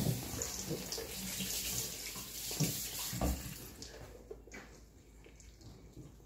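Chicken pot pie filling of chunky vegetables, chicken and white sauce being stirred in a bowl: wet squelching with a few knocks of the spoon against the bowl, dying down about four seconds in.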